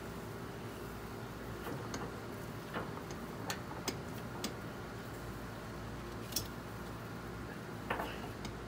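Scattered light metal clicks and clinks, about a dozen spread irregularly, as pork butts are shifted about on a drum smoker's cooking grate and hanging hooks.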